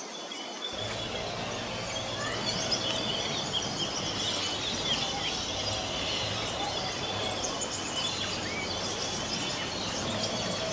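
Many small birds chirping and twittering, with short calls overlapping one another, over a steady low hum that starts about a second in.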